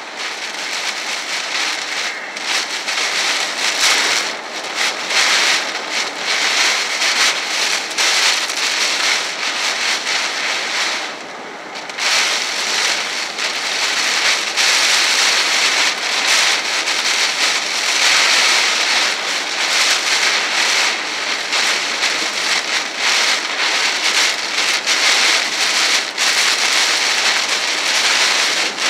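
Heavy rain pelting a car's windshield and roof, heard from inside the cabin as a dense, steady crackling hiss that eases briefly about eleven seconds in.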